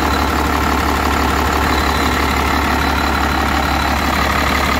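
Warmed-up 12-valve 5.9 Cummins inline-six turbo diesel idling steadily, heard close up in the open engine bay.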